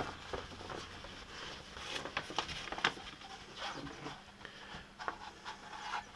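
Faint rustling of a sheet of vinyl wrap film being handled, with a few light clicks scattered through it.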